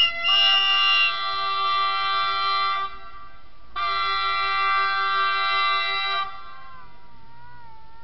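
Electric passenger train's horn sounded in two long blasts, several steady tones at once, about a second apart, as a warning on approaching a level crossing whose barriers have failed to come down. A fainter wavering call follows near the end.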